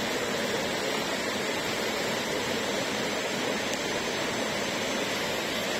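Steady rush of river water spilling in small white-water cascades between boulders.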